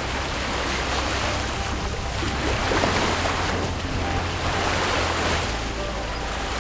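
Sea water rushing past a sailing catamaran's hull, with wind on the microphone adding a low rumble; the rush swells about two to three seconds in and again near five seconds.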